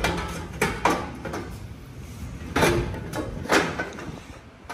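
Metal clunking and scraping, with three louder knocks spread across a few seconds, as a steel long-tube header is worked against the frame and engine to get it into place.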